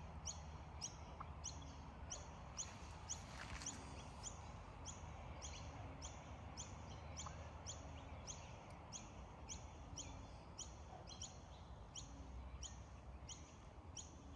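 A bird repeating a short, high chirp that drops in pitch, about twice a second in an even, unbroken rhythm, over a low steady background rumble.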